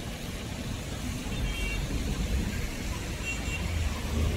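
City street traffic: a steady low rumble of passing motor vehicles, swelling a little near the end.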